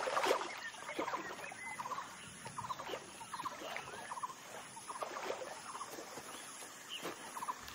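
Wild ambience of many small animals chirping, with short quick trills repeating every second or so; a soft splash of water near the start.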